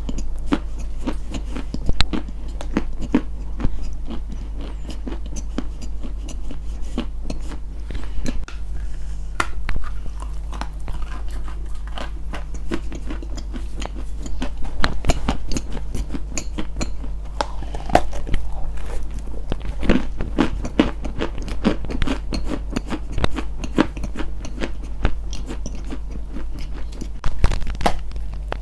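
Close-miked ASMR crunching: a continuous run of small, crisp crunches and crackles, denser in a couple of stretches, over a steady low hum.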